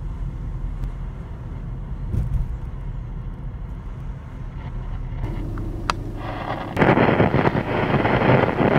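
Low rumble of a car driving, heard from inside the cabin. About two-thirds of the way in, a loud hiss of static starts from the Ford car radio as it switches on, tuned to the AM band, where lightning shows up as static.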